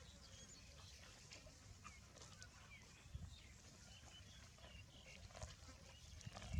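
Near silence in the field: a faint low rumble with scattered faint, short, high chirps of small birds.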